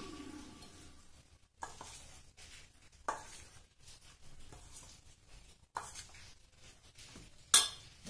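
Metal spoon clinking and knocking against a stainless steel mixing bowl while flour and chopped onion are stirred, a handful of separate clinks with the loudest near the end.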